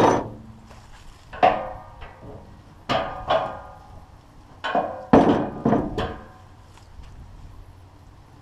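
A series of about eight uneven knocks or clanks over six seconds, each ringing briefly, typical of hammer blows or heavy metal parts knocking together while a band sawmill is being assembled.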